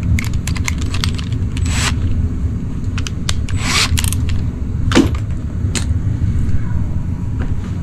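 Metal tool bits clicking and clinking as a nut-driver extension is pulled from a cordless right-angle drill and tools are handled, with a sharper click about five seconds in. Underneath, a steady low mechanical rumble.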